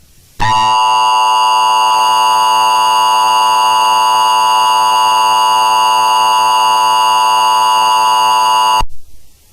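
Emergency Alert System attention signal: a steady two-tone alert tone, about eight seconds long, that cuts off abruptly. It signals that an emergency alert message follows, here a required monthly test.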